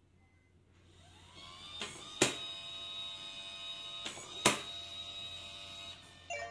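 Yale Linus smart lock's motor spinning up about a second in and whining steadily for about five seconds as it turns the lock to the locked position. Two sharp clicks about two seconds apart come from the mechanism as it turns. A short tone sounds near the end.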